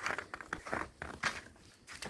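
Footsteps walking, a run of short scuffing steps a quarter to half a second apart.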